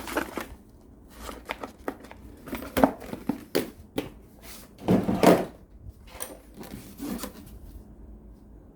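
Hand tools and their cases being handled: an irregular run of clicks, knocks and rustles, loudest about five seconds in.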